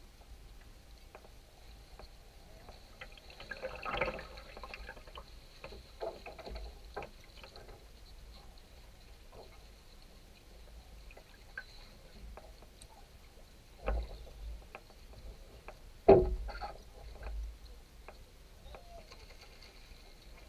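Water lapping and trickling around a small trimaran's hulls, with scattered knocks and clunks as the boat is handled; the loudest clunk comes about three quarters of the way through.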